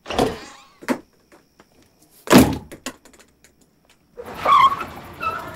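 A panelled wooden house door being opened, with a short knock, then slammed shut about two seconds in: the loudest hit.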